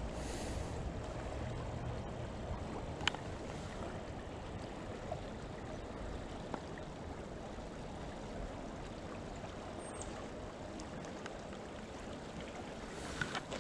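Creek water flowing steadily over shallow riffles, a continuous rushing sound, with one sharp click about three seconds in.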